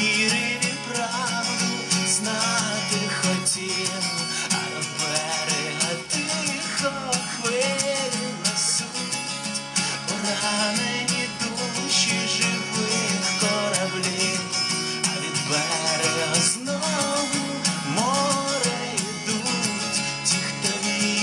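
A man singing to his own acoustic guitar.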